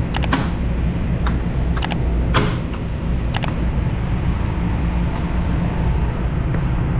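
Sharp clacks of ship's switchboard breakers and switches being reset by hand after an emergency-shutdown trip: a quick cluster, then single or paired clicks every half second or so over the first three and a half seconds. A steady low machinery hum runs underneath.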